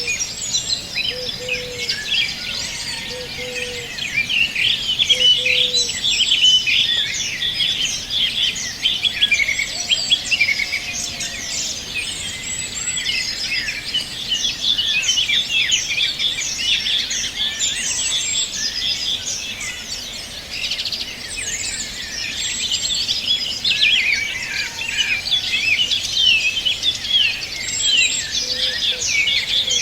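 A dense chorus of many small birds singing and chirping at once, rapid overlapping high chirps and trills throughout, with a few short low notes from another source in the first few seconds and again near the end.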